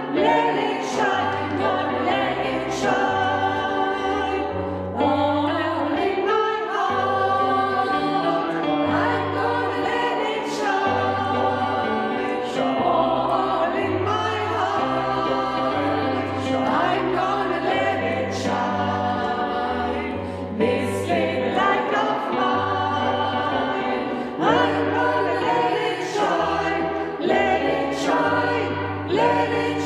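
Choir singing a Christmas song, with a low bass part changing note about once a second underneath.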